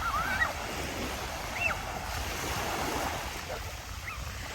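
Sea surf washing on a beach, a steady rushing noise with wind buffeting the microphone. A few brief high cries rise above it, near the start and twice more later.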